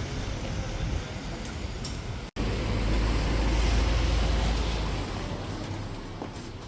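Steady rumbling vehicle noise with a hiss. About two seconds in it cuts off abruptly, and a deeper rumble then swells and fades away.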